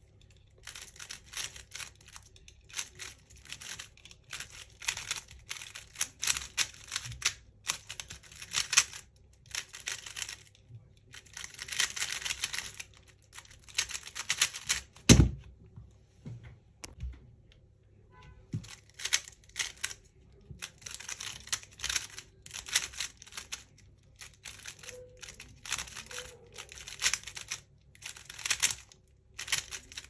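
Rapid clicking of a 3x3 speed cube's layers being turned in quick bursts during a timed solve. About fifteen seconds in, a single sharp knock marks the end of the solve, and after a few seconds of quiet the turning clicks start again.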